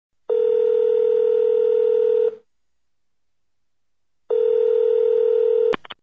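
Telephone ringback tone: a steady single-pitched beep held about two seconds, heard twice with a two-second gap between. The second tone is cut off near the end by a couple of sharp clicks, as when the call connects.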